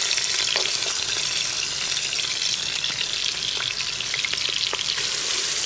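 Sliced onions sizzling steadily in hot oil in a cooking pot, just tipped in to fry. A few light clicks sound over the sizzle.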